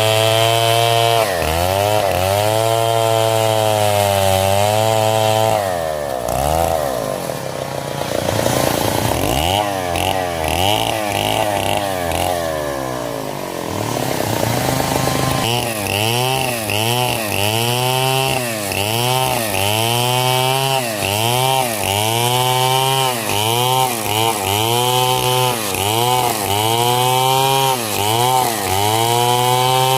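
Stihl two-stroke chainsaw cutting hardwood coconut wood. The engine pitch sags under load and picks up again over and over, and in the second half the dips come regularly, about once a second.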